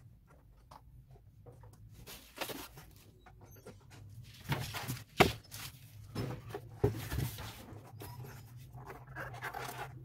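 Plastic casing of a small fan heater being handled and turned over on a workbench: rustling and light knocks, with a sharp plastic click about five seconds in and a few more knocks around seven seconds.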